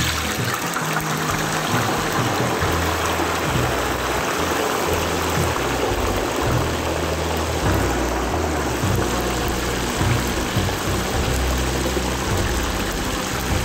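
Raw potato fries sizzling and bubbling hard in the hot oil of a twin-basket deep fryer, just after the baskets are lowered in: a dense, steady hiss. Background music with a low bass line plays underneath.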